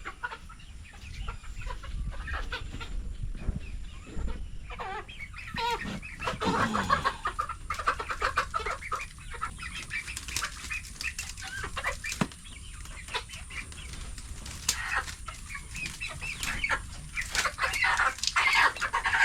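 Local hens clucking and squawking in short, scattered calls, with flapping and scuffling among them, the calls busiest about six seconds in and again near the end.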